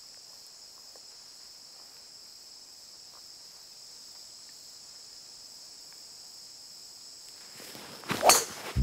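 Steady high-pitched insect chirring, then near the end one sharp crack of a golf driver striking the ball off the tee, a slight mishit.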